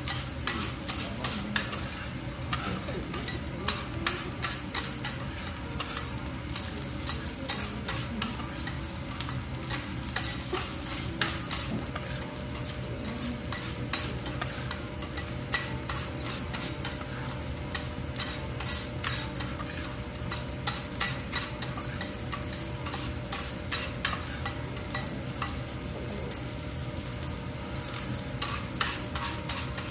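Garlic slices sizzling in oil on a hot steel teppanyaki griddle, with frequent light clicks and scrapes of two steel spatulas against the plate as the slices are turned and gathered.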